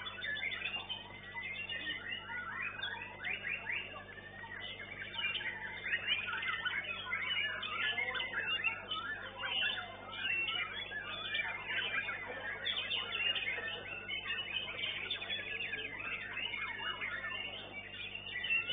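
Several white-rumped shamas (murai batu) singing at once, a dense unbroken tangle of rapid whistles, chirps and sweeping notes.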